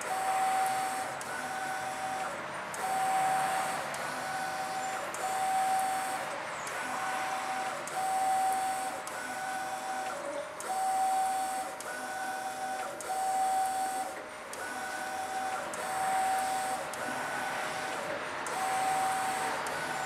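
Mimaki GP-604 direct-to-garment inkjet printer printing a t-shirt. The print-head carriage sweeps back and forth, and its drive gives a whine that comes and goes about once a second, with short breaks as the carriage reverses.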